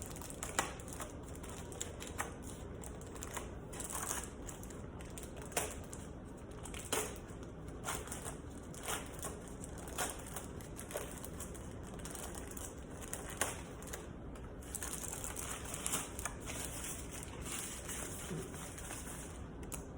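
Keyboard packaging being handled and opened: crinkling of paper and plastic wrap with scattered light knocks and clicks, a few every second or two.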